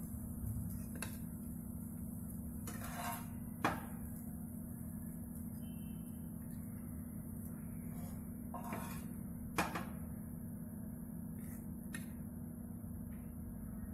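Metal spatula and hands setting fried kababs down on a paper-lined plate: a few light clicks and soft rustles against a steady low hum.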